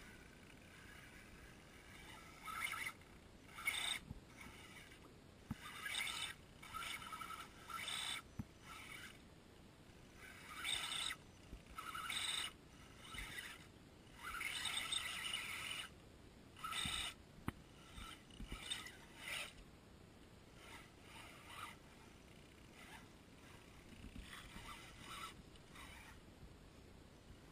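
Axial Wraith RC rock crawler's electric motor and geared drivetrain whining in about a dozen short bursts as the throttle is worked, each lasting under two seconds, with the longest a little past the middle.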